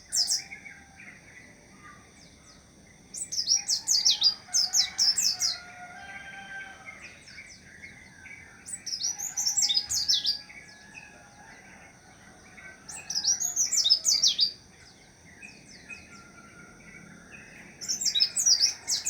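White-eye (pleci) singing in short bursts of rapid, high twittering, a phrase of a second or two every four to five seconds, with fainter, lower warbling between the phrases.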